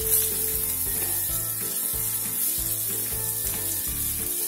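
Sliced onions sizzling in hot coconut oil in a cast-iron kadai, steady frying hiss, while being stirred with a wooden spatula. Low background music notes underneath.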